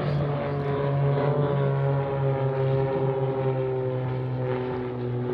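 Propeller aircraft engine droning steadily, its pitch sinking slowly as the aircraft passes.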